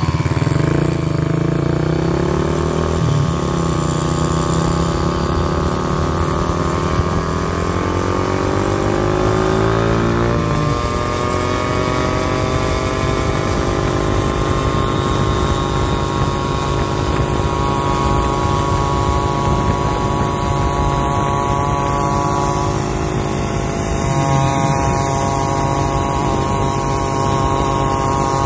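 Motorcycle engines running hard at speed: the homemade wooden-frame motorcycle on its top-speed run and the following scooter, with road and wind noise. The engine pitch climbs steadily for about ten seconds, drops suddenly, then holds steady.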